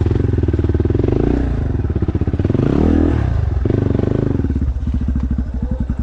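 Dirt bike engine on a rough off-road trail, revving hard in bursts with a quick rev up and back down about halfway through. About two-thirds of the way in it drops to slow, low-rev chugging.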